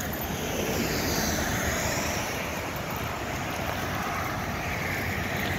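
Road traffic going by: a steady rush of tyre and engine noise that swells about a second in.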